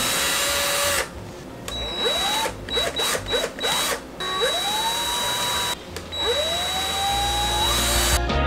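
Cordless drill running into a vehicle headliner board in several pulls of the trigger. Each time the motor whine rises in pitch and then holds steady: a run of about a second at the start, a string of quick short bursts, then two longer runs of a second or two.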